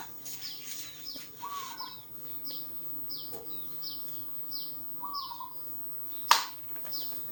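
Small birds chirping, short high downward chirps about twice a second, with a lower arched whistled note twice. A single sharp click about six seconds in is the loudest sound.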